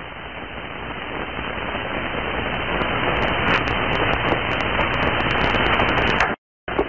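Steady hiss and static on an old soundtrack, growing louder, with scattered crackles. It cuts out to silence for a moment near the end.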